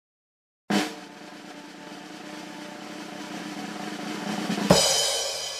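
Intro music sting: a drum roll that swells for about four seconds over a held chord, ending on a loud crash that rings briefly and then cuts off.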